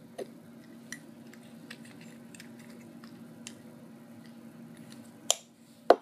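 Faint handling noises, small clicks and taps over a low steady hum, with two sharper knocks close together near the end.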